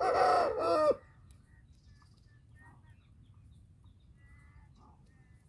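An Aseel rooster gives one short, loud crow in the first second, ending on a falling note.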